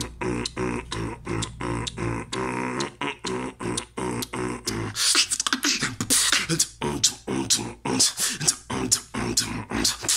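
Solo human beatboxing: a hummed, pitched bass line under regular clicking beats, about four a second, turning into a denser, busier pattern of sharp, hissy hits about halfway through.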